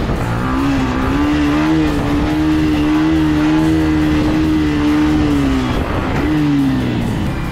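Motorcycle engine revved up and held at high revs for about five seconds, then dropping, followed by a second, shorter rev that falls away near the end.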